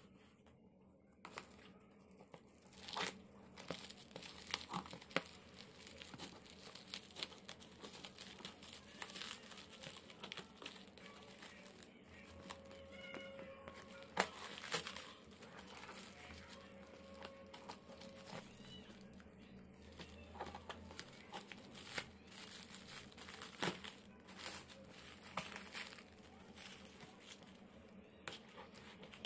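Clear plastic stretch wrap and packing tape crinkling and tearing as a parcel is pulled open and cut with scissors, in irregular crackles and snips.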